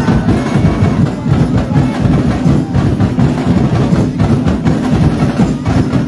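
Loud percussion-heavy dance music with a driving drum beat. The last of a crowd's shouting and cheering fades out just at the start.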